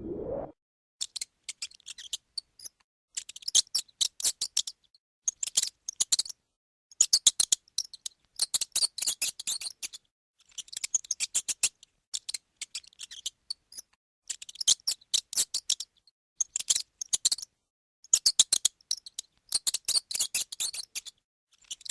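Mouse squeaking: rapid trains of thin, very high squeaks in bursts of a second or two, with short silent gaps between them. A rising glide from the opening music fades out in the first half second.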